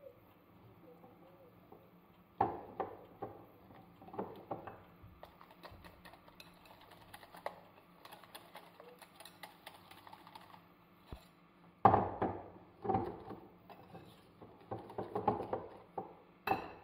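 Metal wire whisk beating egg and flour into a thick batter in a glass bowl, clinking and scraping against the glass in irregular bursts of taps, loudest about two seconds in, near the middle and near the end, with fainter ticking between.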